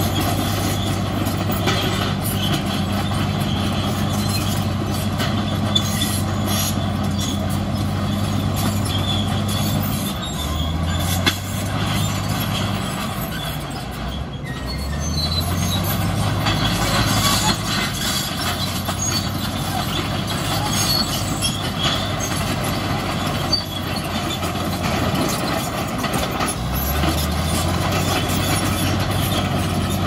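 Crawler bulldozer's diesel engine working under load, easing off and revving back up about three times, with metal clattering and squealing over it.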